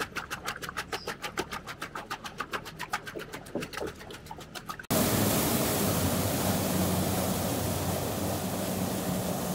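A Sherp amphibious ATV moving slowly in the water makes a quick, rhythmic chirp about eight times a second. About five seconds in, this gives way abruptly to a steady rush of churning water and spray under the low drone of the Sherp's engine as it ploughs through the lake at speed.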